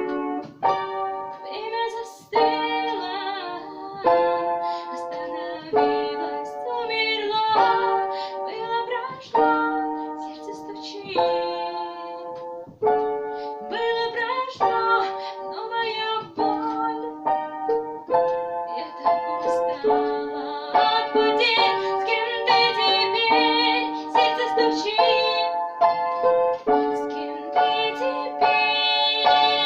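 Piano playing a rock song arranged for piano, with a new chord struck every second or two.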